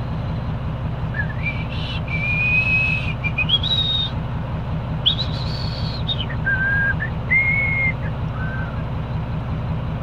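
A man whistling a tune: a string of held, pure notes that step up and down, starting about a second in and stopping near the end. Under it runs the steady low hum of an idling vehicle engine.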